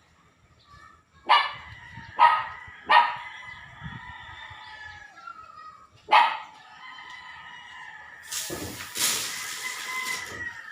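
A dog barking four times: three barks in quick succession, then one more a few seconds later. Near the end comes a rushing hiss that lasts about two seconds.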